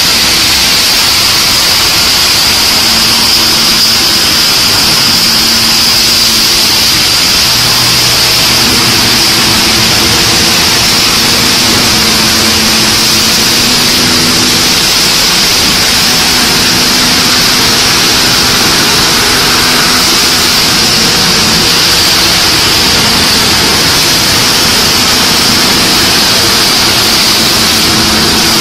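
Particle board sanding production line running: a loud, steady, high hiss of machinery with a faint motor hum underneath.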